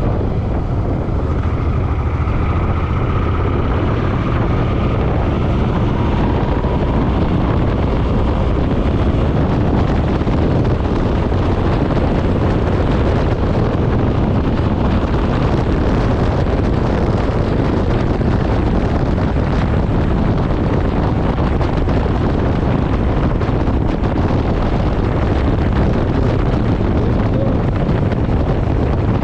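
Suzuki Boulevard M50 V-twin motorcycle riding at road speed. The engine runs steadily under heavy, constant wind noise on the microphone.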